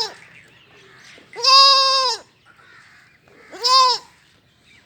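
Baby goat kid bleating twice, high-pitched: a longer call about a second in, then a shorter one near the end.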